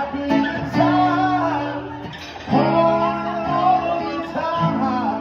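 A man singing three long, wavering held notes over strummed chords on an acoustic guitar.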